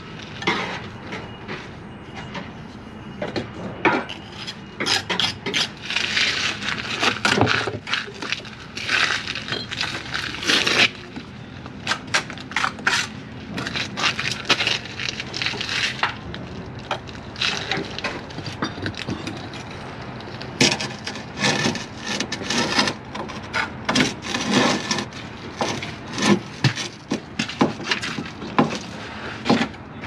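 Steel brick trowel scraping and tapping on clay bricks and mortar while a brick is laid and mortar packed into a tight joint: irregular scrapes and sharp knocks throughout.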